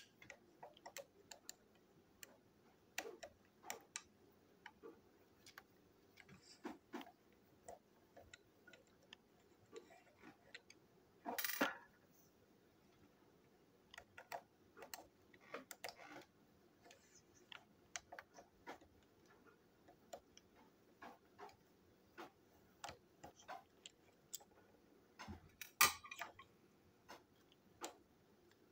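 Small hard plastic parts of a battery-powered toy locomotive clicking and tapping as they are handled and a tiny screw is worked with a small screwdriver: irregular light clicks throughout, a louder brief scrape about eleven seconds in and a louder clatter near the end.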